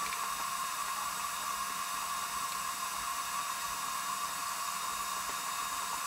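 Steady, even background hiss with a faint low hum.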